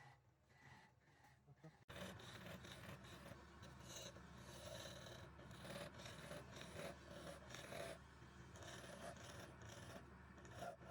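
Faint steady hum of a wood lathe with irregular rasping over it, starting abruptly about two seconds in.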